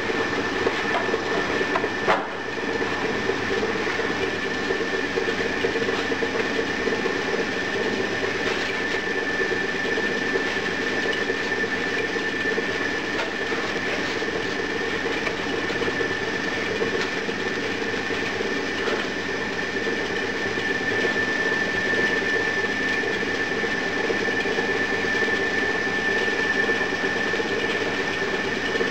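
Homemade sand muller running, its steel pan turning under a crushing roller and scraper blade as it grinds lumps of used foundry sand dry, with a steady high whine. A single sharp knock sounds about two seconds in.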